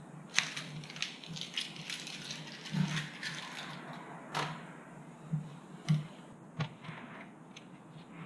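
Handling noises at a workbench: crinkling and rustling with scattered sharp clicks and knocks as small items are picked up and set down, over a low steady hum.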